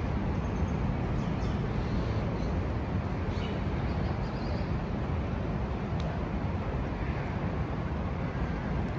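Steady low outdoor rumble of city background noise, with a few faint high-pitched sounds in the first half.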